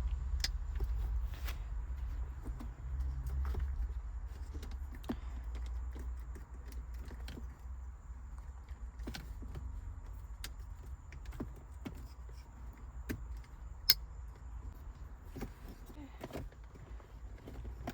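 Scattered small clicks and rustling of hands handling plastic trim and wiring in a car's interior, over a low rumble, with one sharper click about three-quarters of the way through.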